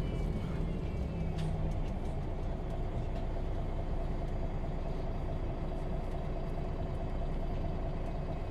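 Heard from inside a MAN Lion's City G articulated bus: its engine running steadily, a low rumble with a steady hum over it.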